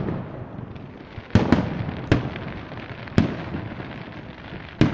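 Aerial fireworks shells bursting: two sharp bangs in quick succession about a second and a half in, another just after two seconds, one at about three seconds and one more near the end, each trailing off in a rolling echo.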